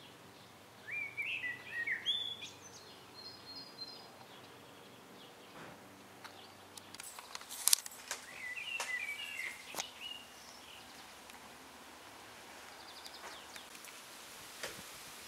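A small songbird sings short warbling phrases twice, with a higher trill between, over a faint outdoor background. A few sharp clicks come about halfway through.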